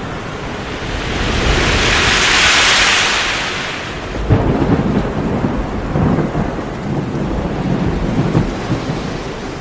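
Thunderstorm: a rushing hiss swells and fades over the first few seconds, then thunder breaks about four seconds in and rolls on in a low, crackling rumble over rain.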